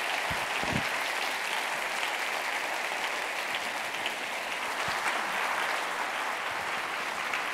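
Audience applauding steadily, a dense clapping that holds throughout, with a few low thumps about half a second in.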